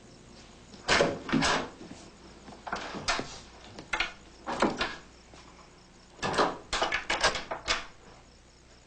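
Irregular short knocks and clatters in several groups, the busiest cluster coming about two-thirds of the way through, like things being handled or a door or drawer being worked.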